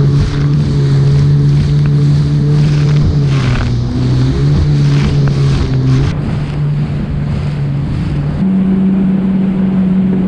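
Yamaha VX Cruiser HO WaveRunner's engine running hard at a steady pitch as the jet ski pounds across wind-driven chop, with spray and the hull slapping the waves, and wind on the microphone. Near the end the sound cuts to a steady, higher engine tone.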